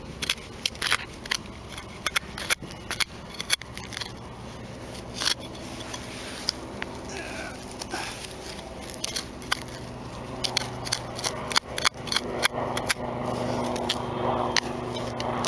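Digging into soil to recover a detector target: irregular sharp scrapes, clicks and crunches of the digging tool and earth. A steady low hum joins about halfway through.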